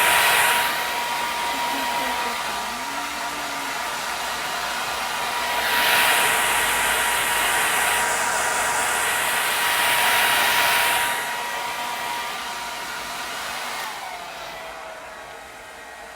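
Hair dryer blowing steadily and loudly close by: a full, rushing hiss with a thin motor whine, growing louder and brighter for a few seconds mid-way. Near the end the whine slides down in pitch and the sound quietens as the motor slows.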